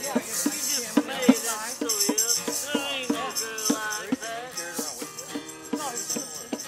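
A song playing: a singing voice over a steady beat with a shaker-like rattle.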